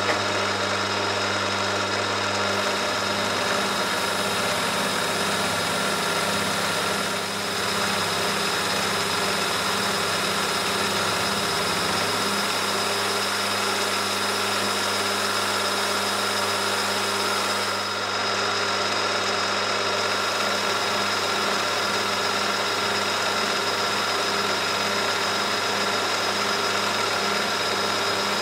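Milling machine spindle turning a 12 mm carbide end mill at about 1000 rpm while it cuts along a metal bar, a steady machine hum with the whir of the cut.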